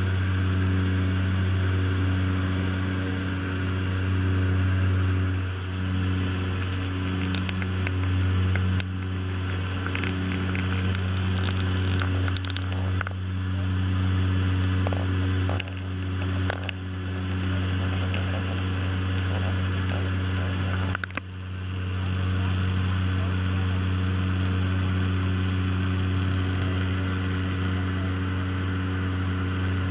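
Steady drone of a de Havilland Canada Twin Otter seaplane's turboprop engines and propellers in cruise, heard from inside the cabin, with a strong low hum. The level dips briefly a few times around the middle.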